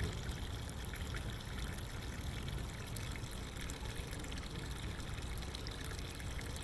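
Water trickling and lapping steadily, over a low rumble.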